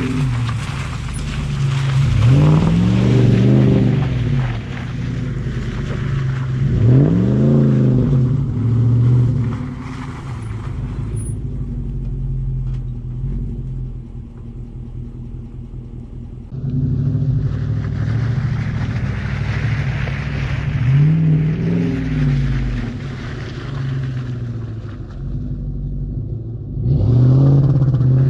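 A small engine revved up and let back down again and again, each burst rising in pitch and falling away, with a quieter lull around the middle.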